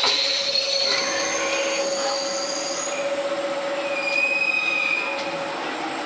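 CNC lathe running as it machines small metal parts: a steady whine, with high-pitched squealing tones from the cutting that come and go.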